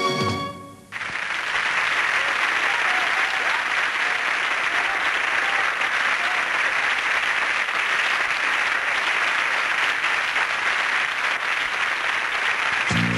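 An audience applauding steadily, after the music cuts off about a second in; music starts up again at the very end.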